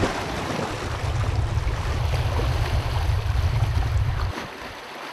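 Sea surf washing on rocks with wind buffeting the microphone, a steady rushing noise over a low rumble. The rumble cuts off suddenly about four seconds in.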